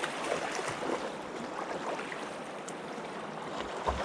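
Selway River flowing, a steady rush of moving water.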